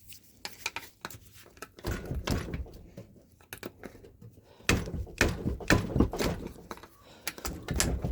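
Irregular knocks and thunks of metal being struck, in uneven groups: a stuck joint on a two-stroke engine being hit to break it loose.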